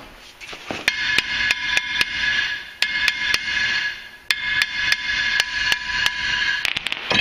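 Hammer blows, about three a second, on a Ford F-250 Super Duty's cast-iron front brake rotor, the disc ringing on between strikes. The rotor is rust-bound to the hub and is being knocked loose.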